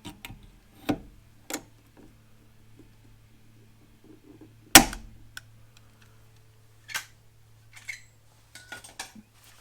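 Blind pop rivet being set into an aluminum panel: a few light clicks from the rivet tool, then one sharp snap about five seconds in as the rivet's mandrel breaks off, followed by a smaller snap and scattered clicks. A faint steady hum runs underneath.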